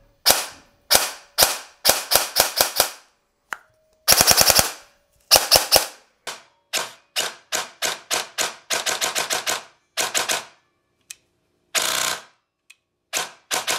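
KWA Ronin airsoft electric gun with 13:1 gears and a short-stroked trigger firing, each shot a sharp crack of the gearbox cycling. It fires single shots and short bursts, with a fast full-auto burst about four seconds in, showing snappy trigger response from a build made to fire about 30 rounds a second.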